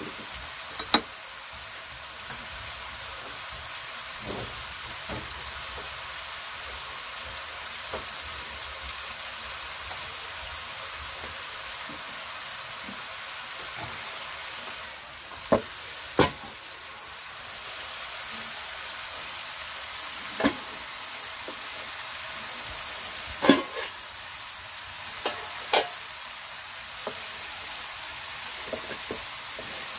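Onion-tomato masala sizzling steadily in hot oil in a frying pan as it is fried down. A few sharp knocks now and then, the loudest about two-thirds of the way through, from the wooden spoon against the pan.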